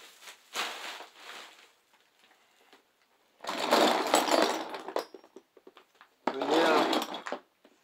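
A heap of Beyblade tops with metal wheels and plastic parts clattering and scraping against one another and the table as hands push and spread the pile, in several bursts of rattling with scattered clicks between.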